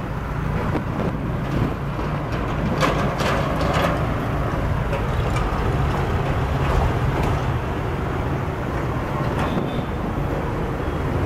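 Heavy road traffic crossing a railway level crossing: diesel truck engines rumbling steadily, with motorcycles and vans passing. A cluster of rattles and clanks comes about three seconds in.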